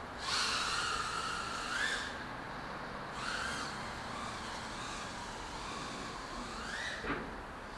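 High whine of a micro FPV quad's iFlight 1103 8000kv brushless motors and short props, its pitch rising and falling with the throttle in bursts. About seven seconds in it climbs steeply, then drops away suddenly.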